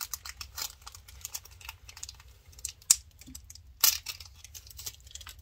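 A foil Pokémon booster-pack wrapper crinkling and crackling as it is worked open by hand. Two louder, sharper crackles come about three and four seconds in.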